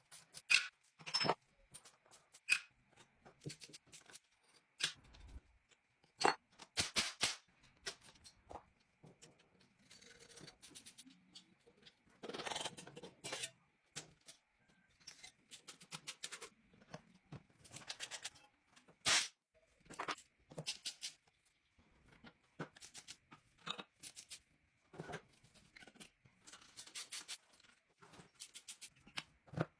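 Irregular sharp clicks and taps with a few short scrapes, the sound of hand work on metal parts during a restoration, over a faint steady high whine.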